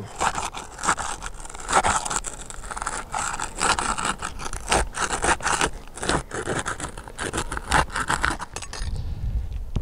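Flat pry bar scraping under asphalt 3-tab shingle tabs, working them loose from the sealant strip beneath, in a run of short, irregular scraping strokes.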